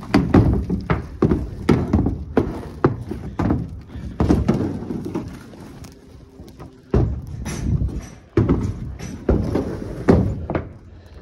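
Irregular knocks and thuds, coming a few to several a second with short gaps, as a large tarp is handled and hung across barn pens.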